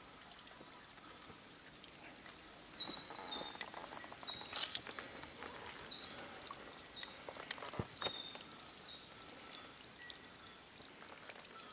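A small songbird singing one long, rapid, high-pitched song of varied trills and quick notes. It starts about two seconds in and stops shortly before the end.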